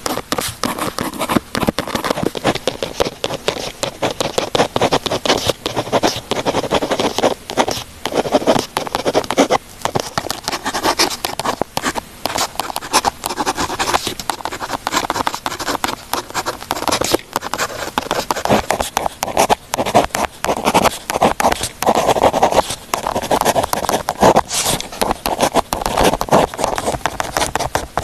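Writing on paper: a pen or pencil scratching in quick, continuous strokes, with a few brief pauses.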